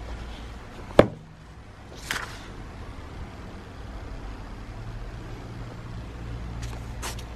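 A hardback diary being opened and its pages turned: a sharp click about a second in, a papery swish about two seconds in, and paper rustling near the end, over a steady low rumble.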